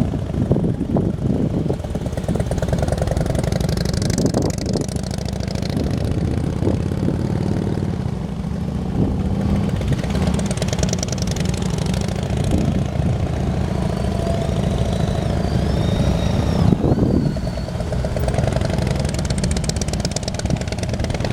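Engines of heavy touring motorcycles running at low speed, a steady low rumble.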